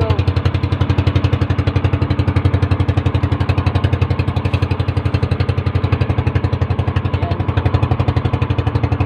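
Small motorized bangka's petrol engine running steadily with a fast, even low thumping.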